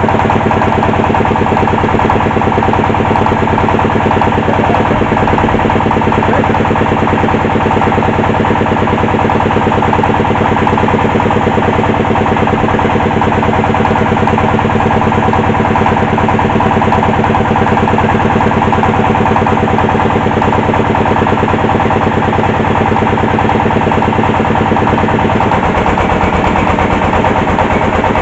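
Engine powering a hydraulic well-drilling machine, running steadily with a fast, even pulse; its note shifts slightly a few seconds before the end.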